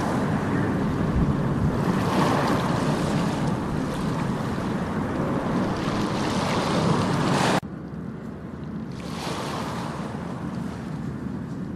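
Sea surf washing onto a beach, with wind buffeting the microphone and the rush swelling and easing. About two-thirds of the way through it cuts off sharply to quieter surf.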